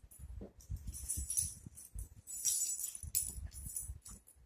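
Small metal jingling in irregular shakes, like a tag or bell on a puppy's collar as she moves about, with soft low thumps and rustling of handling underneath.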